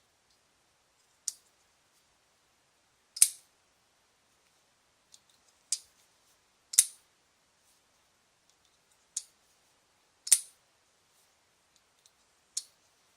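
Small folding pocket knife with a flipper-assisted blade and liner lock being flicked open and snapped shut over and over. There are seven sharp metallic clicks, lighter ones alternating with louder ones, each louder click coming a second or so after a lighter one.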